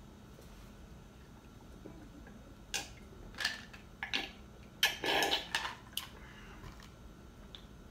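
Person drinking from a plastic cup: a handful of short gulping and slurping noises over about three seconds, the loudest about five seconds in, then a small tick near the end.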